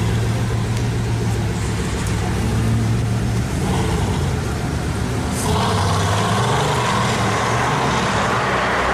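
Bugatti Veyron's quad-turbocharged W16 engine running with a steady low drone, then moving off. From about five and a half seconds in it gets louder and fuller.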